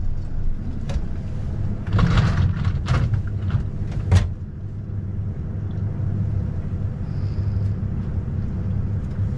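Twin outboard motors running steadily at low speed, a low rumble, with a few sharp knocks on the boat, the loudest about four seconds in, and a short rustling burst about two seconds in.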